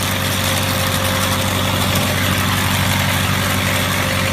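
Tractor running steadily while powering a tractor-drawn sweeper nut harvester: a constant engine hum with an even machinery hiss over it.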